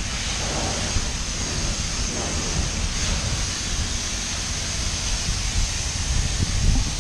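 High-pressure car wash wand spraying water onto a car: a steady hissing rush with a low rumble underneath.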